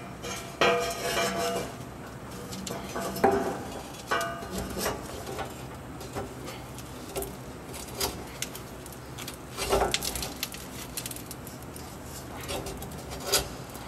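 Steel coil spring being fitted by hand into its seat above a rear axle: scattered metallic clinks and knocks of the spring against the axle and underbody, with a few louder knocks spaced a few seconds apart.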